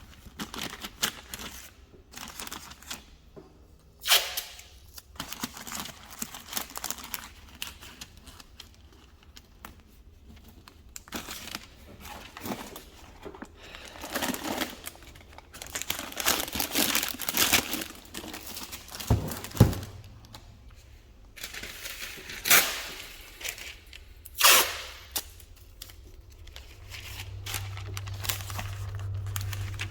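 Masking tape and paper being peeled off a freshly painted helmet and crumpled: irregular crinkling and tearing with a few sharp rips. A steady low hum comes in near the end.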